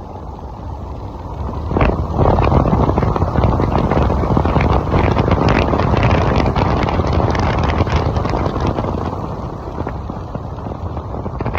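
Wind rushing and buffeting on the microphone of a moving electric motorcycle, with no engine sound. It swells sharply about two seconds in and eases off near the end.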